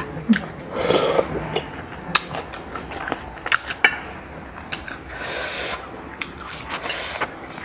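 Close-up eating sounds of grilled apple snails: scattered sharp clicks of snail shells and a toothpick against a ceramic plate, with chewing and two short slurping hisses, one about a second in and a longer one near five seconds.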